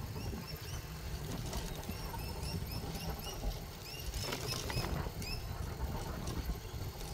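Low wind and road rumble from riding a bicycle, with a repeated high, faint chirping, about three chirps a second, and a few light clicks about four seconds in.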